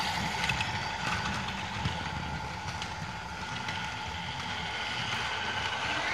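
LEGO Duplo battery-powered toy train running along its plastic track: the small electric motor gives a steady whine over the rumble of the wheels on the rails.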